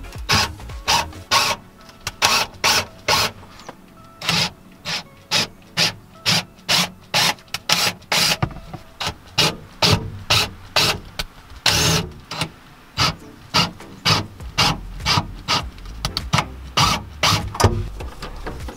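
Repeated rasping strokes, about two a second, with one louder stroke around twelve seconds in.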